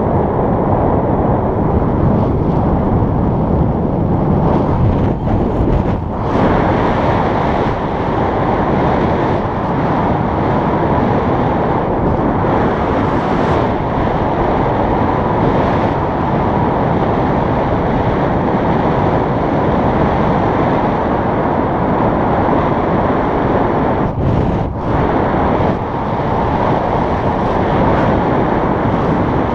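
Steady, loud wind rushing over the camera microphone in paraglider flight, briefly easing about six seconds in and again near the end.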